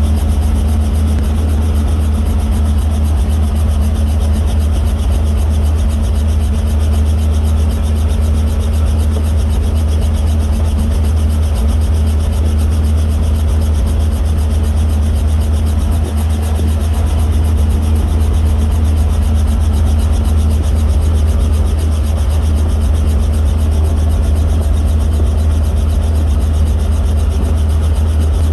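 Helicopter in flight heard from inside the cabin with the doors off: a steady, loud low drone of rotor and engine, with air rushing past the open door frame.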